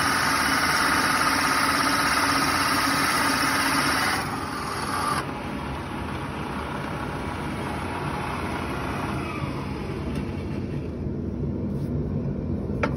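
A Forstner bit spinning in a power-driven chuck bores into the end of a small round piece of wood, hollowing it out for a votive cup. The steady cutting noise stops about four seconds in, and the machine runs on more quietly.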